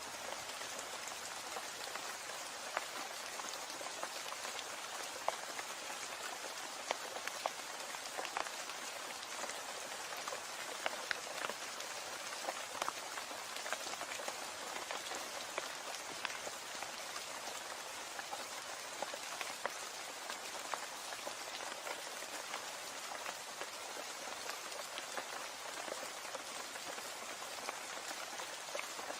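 Steady, heavy rain hissing, with many individual drops ticking sharply close by.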